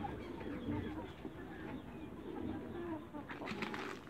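A flock of young Light Brahma chickens clucking softly, many short low calls overlapping. A brief rustling noise comes about three seconds in.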